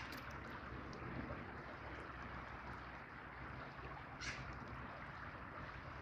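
Shallow river flowing over stones, a steady rush of water, with one short bird call about four seconds in.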